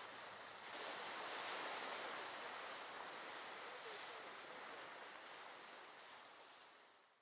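Faint sizzling crackle of fireworks as a glittering burst burns out, heard as an even hiss. It swells slightly about a second in and fades away over the last couple of seconds.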